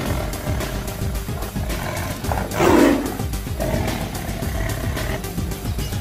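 Background music with a steady beat, and one loud, short lion roar about two and a half seconds in.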